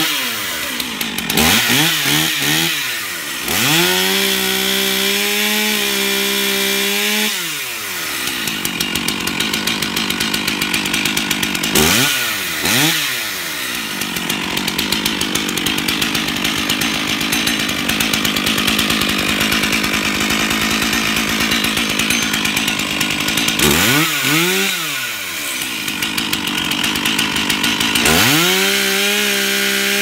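Stihl GS 461 Rock Boss concrete chainsaw's 77 cc two-stroke engine running with no load: it idles between throttle blips, revs up and falls back a few times, and is held at high revs for a few seconds about four seconds in and again near the end.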